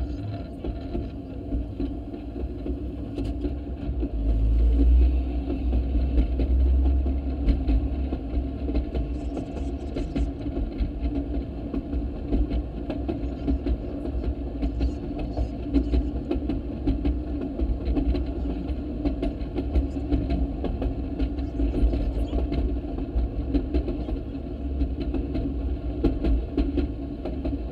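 Railroad speeder's small engine running steadily as the car travels along the track, with frequent clicks from the wheels on the rails. The low rumble swells for a few seconds about four seconds in.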